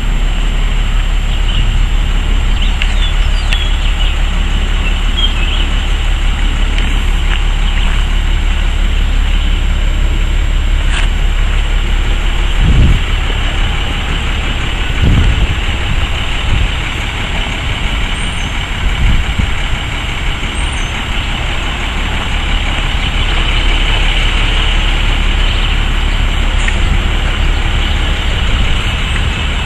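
Cummins L10 six-cylinder turbo diesel of a 1993 International box truck idling steadily, with a couple of brief low thumps about halfway through.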